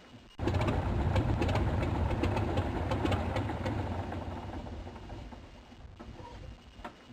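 Helicopter rotor blades chopping over the running engine. The sound cuts in abruptly about half a second in and fades over the last few seconds.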